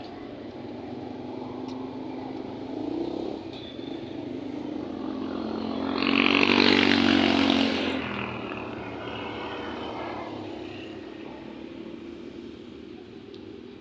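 A motor vehicle passing by on the road: it grows louder, is loudest about six to seven seconds in, and its engine note drops in pitch as it goes past, over fainter steady traffic noise.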